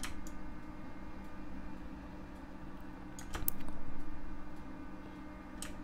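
A few sharp, scattered clicks of a computer keyboard and mouse, over a steady low electrical hum.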